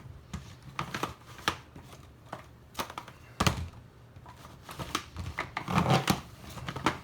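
Plastic layers of a giant He Shu Rubik's cube clicking and clacking as they are turned by hand, in irregular runs of sharp clicks. The cube is stiff and locks up, so the turns come haltingly.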